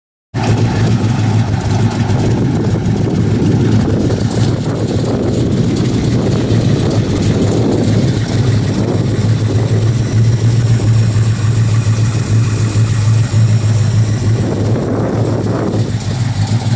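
1971 Plymouth 'Cuda's 426 Hemi V8 idling with a steady, deep exhaust rumble, cutting in suddenly right at the start.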